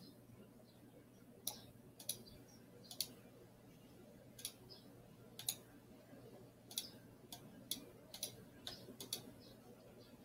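Computer mouse clicking: about ten short, sharp clicks at irregular intervals, over a faint steady hum.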